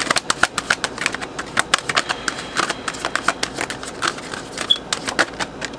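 A deck of oracle cards being overhand-shuffled by hand: a fast, irregular patter of card edges clicking and slapping together, stopping near the end.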